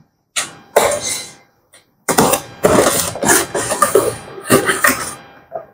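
Cardboard box being opened and its packaging handled: a string of irregular scraping and rustling noises with sharp starts and brief pauses between them.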